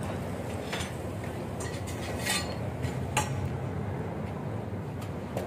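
A few light clinks and knocks, about three, as roasted meat and bones are pulled apart and knock against a large aluminium basin, over a steady low hum.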